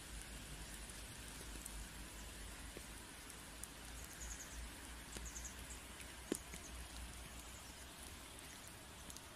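Faint, steady outdoor hiss with scattered small ticks, like light rain or water pattering, and a few brief high chirps about halfway through.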